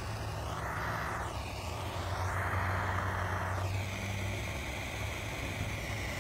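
Handheld gas torch flame hissing steadily as it is swept over freshly poured epoxy resin to raise cells, the hiss swirling as the nozzle moves and dropping back about four seconds in.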